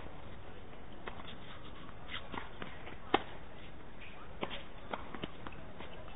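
Tennis rally on a hard court: a single sharp pock of a racket hitting the ball about three seconds in, the loudest sound, with fainter, more distant ball strikes and bounces and light taps of footsteps scattered around it, over a steady background hiss.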